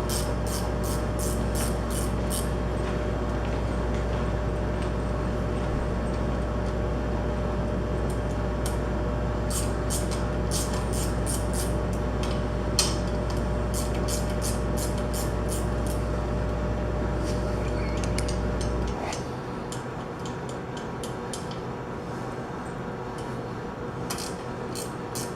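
Wrench working the bolts off a pump housing: runs of quick, sharp metal clicks, with a few pauses between them. Under it a steady background hum, which cuts out about three quarters of the way through.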